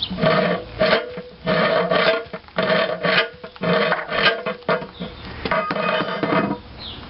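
Steel railroad pinch bar rammed repeatedly into an engine's cast-iron cylinder, striking the washer behind the stuck cylinder sleeve to jar it loose. A series of scraping, ringing metal blows, roughly one a second, stopping shortly before the end.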